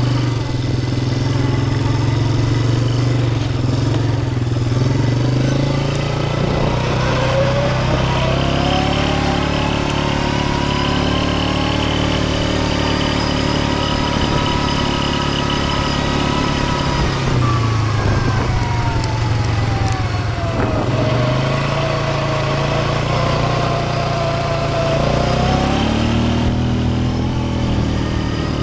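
ATV engine running under way. It is low and steady at first. Its pitch climbs from about six seconds in as it speeds up, holds, falls back around eighteen seconds, and rises again near the end.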